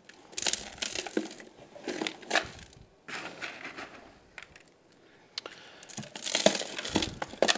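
Bony, stony soil being poured by hand into a small box around a thin metal culvert pipe, in several separate pours with short gaps between.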